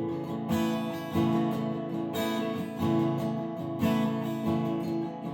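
Acoustic guitar with a partial capo on the 2nd fret, strummed in G-shape chords. There is a fresh strum about every second, and the chords ring between them.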